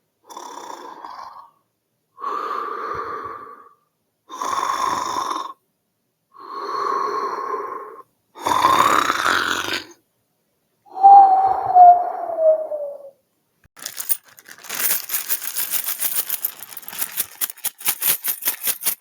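A string of homemade vocal sound effects: six short breathy noises about a second each with gaps between them, the fifth rising in pitch and the sixth falling and loudest. These are followed by about five seconds of rapid rattling clicks.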